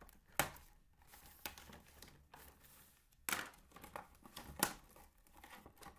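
Plastic packaging crinkling and rustling as it is cut with scissors and pulled open, with several sharp crackles, the loudest about half a second and four and a half seconds in.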